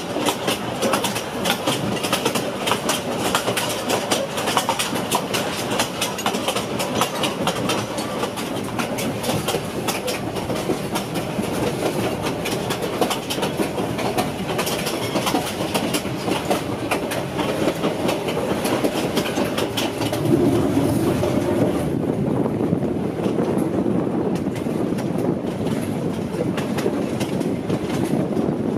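Passenger train coach running at speed, its wheels clattering over the rails and the body rattling. About two-thirds of the way through, the sharp clatter thins and a deeper rumble takes over.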